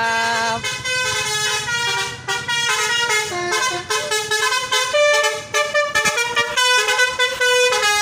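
Tourist coach's "telolet basuri" multi-tone horn playing a tune: several horn notes sounding together, the melody stepping up and down every fraction of a second with a few short breaks.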